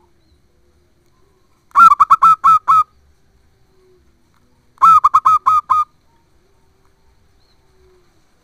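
Zebra dove (perkutut) calling loudly: two phrases of five or six quick cooing notes, each phrase about a second long and about three seconds apart.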